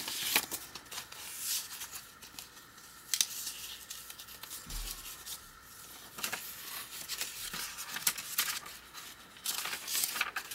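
Pages of a handmade journal made of old ledger paper and book pages being turned and handled: rustling and crinkling, several separate page turns with quieter paper handling between.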